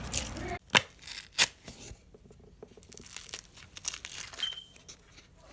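Sticky clear slime full of foam beads being stretched and squeezed, giving sharp crackling pops and tearing sounds, the loudest in the first second and a half, then quieter crackles.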